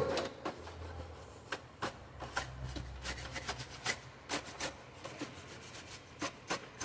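Hands working on a laser printer's plastic parts and housing: irregular clicks and knocks over scraping and rubbing.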